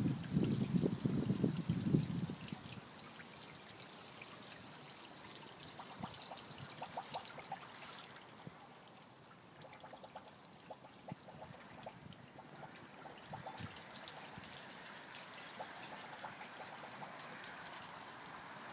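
Water from a small garden-pond cascade trickling and splashing into the pond. It is loud for the first two seconds or so, then fainter and steady.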